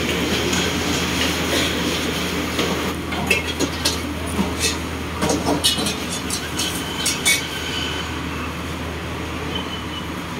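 Steady rush of a gas wok burner on a commercial wok range, with a utensil clinking against the metal wok several times in the middle.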